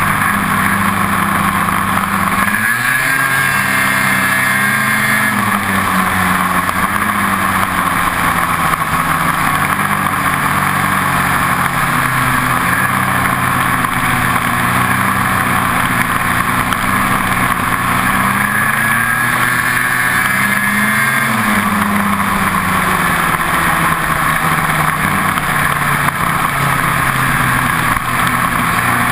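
Ski-Doo snowmobile engine running at speed, its pitch dropping and climbing back twice, a few seconds in and about two-thirds of the way through, as the throttle is eased off and opened again, over a steady hiss.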